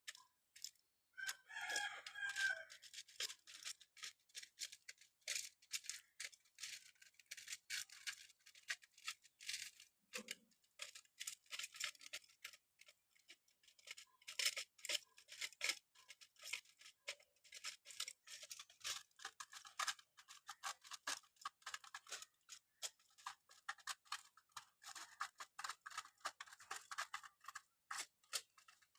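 Pigeons pecking at food: a rapid, irregular patter of small beak taps on a hard surface, with a brief bird call about two seconds in.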